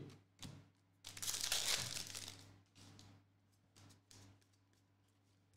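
Crinkling and rustling of a foil trading-card pack wrapper and cards handled by hand. The longest crinkle starts about a second in and lasts about a second and a half, followed by a few short rustles.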